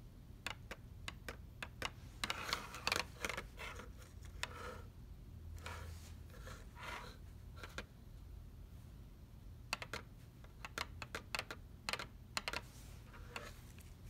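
Irregular sharp clicks and taps, coming in quick runs about two seconds in and again from about ten seconds in, over a low steady hum.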